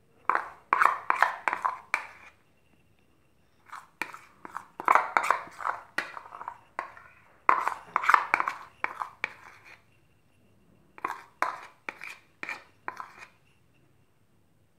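A spoon scraping and tapping against a bowl and baking vessel while cake batter is spooned in, in four bursts of a couple of seconds each with short pauses between.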